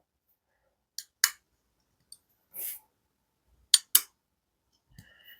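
Kizer Mini Grouper button-lock folding knife being flicked open and shut on its ball-bearing pivot: sharp metallic clicks in two close pairs, about a second in and again near four seconds, with a short soft swish between. The clicks are the blade snapping past its detent and into the lock.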